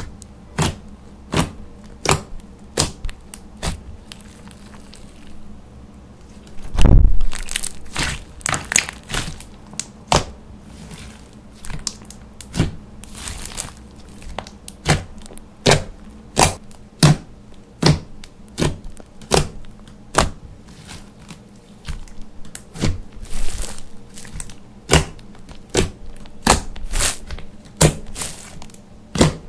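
Pink glossy slime being squeezed, stretched and poked by hand, making a run of sharp sticky clicks and pops as air pockets burst, one to three a second. About seven seconds in comes one much louder, longer squelch.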